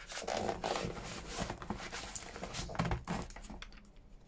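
Paper rustling and soft, irregular knocks as a book is handled and turned on a wooden table and its pages worked loose at the spine.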